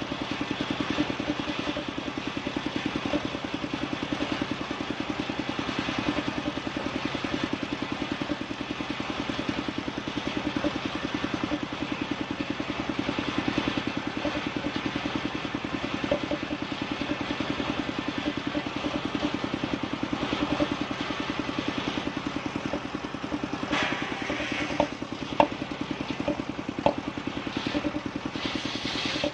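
Engine of a wood-sawing machine running steadily with an even, rapid beat, with a few sharp knocks near the end.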